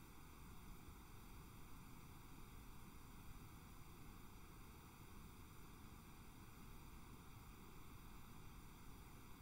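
Near silence: a faint, steady hiss of recording noise.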